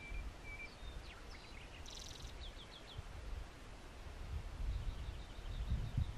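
Small birds chirping in scattered short high calls, including a quick run of four notes about two and a half seconds in, over a low wind rumble that grows stronger toward the end.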